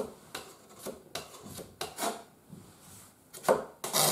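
Hands rubbing and shifting a model plane's wooden wing against its fuselage, a few short quiet scrapes, then sandpaper scrubbing on the fuselage side starting just before the end.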